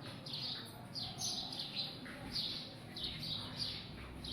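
Small birds chirping: a steady run of short, high chirps, each falling in pitch, several a second.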